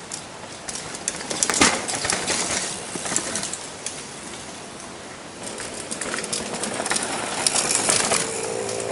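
Downhill mountain bike rattling and clattering over a rough dirt trail, with bursts of chain and frame rattle and tyre noise, loudest about a second and a half in and again near the end as a rider passes close.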